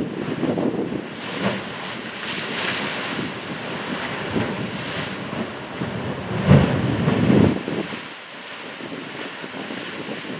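Sea surf surging into a narrow rocky gully, waves washing in and draining back, with wind buffeting the microphone. The loudest surge comes about six and a half seconds in, then it eases.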